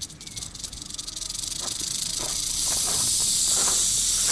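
Rattlesnake rattling its tail in warning: separate clicks that speed up and merge into a continuous high buzz, growing louder over the first few seconds and then holding steady.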